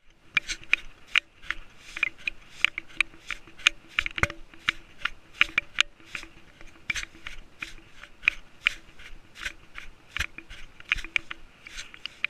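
Sharp clicks and scrapes, about two or three a second, from a GoPro Session camera harnessed to a walking cat, knocking and rubbing with each step over gravel, with a faint steady hum underneath.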